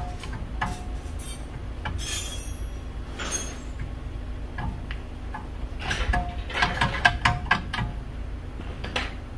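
Metal-on-metal clinks and knocks with a short ring, from work on a car's rear brake rotor and hub. A scraping sound comes about two seconds in and another about three seconds in, then a quick run of louder strikes between about six and seven and a half seconds in.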